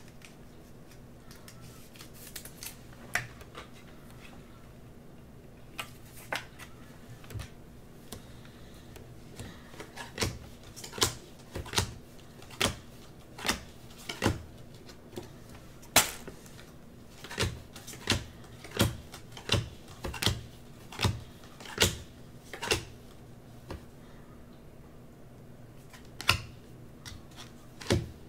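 Unparalleled football trading cards being dealt off a stack one at a time, each card giving a crisp snap. The snaps are scattered at first, then fall into a steady run of about one a second through the middle, and thin out again near the end.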